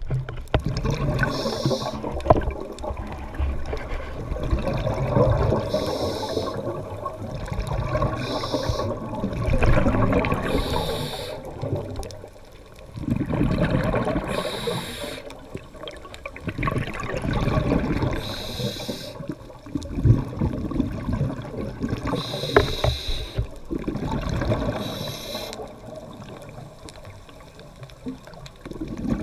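Scuba breathing through a regulator underwater, in a repeating cycle every few seconds: a short hiss on each inhalation, then a longer surge of bubbling as each breath is exhaled.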